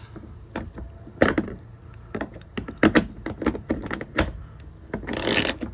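Scattered clicks and knocks of hand tools being handled as a 10 mm socket and ratchet are readied and set onto bolts, with a short, noisier burst near the end.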